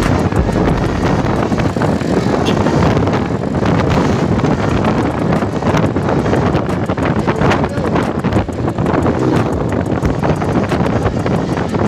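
Wind buffeting the microphone on a moving motor scooter, over steady road and vehicle noise.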